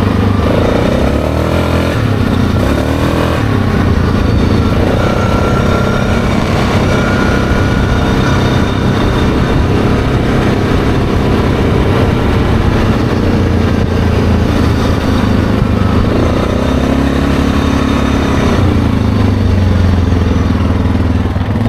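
ATV engine running as the machine is ridden along a road, with the engine pitch rising and falling a couple of times as the throttle changes.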